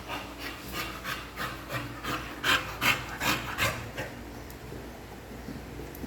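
A dog panting quickly in rhythmic raspy breaths, louder for a moment past the middle, then stopping about two-thirds through.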